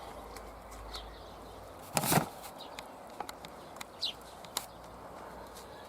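A single short thump or rustle about two seconds in, then a few faint clicks over a low steady background.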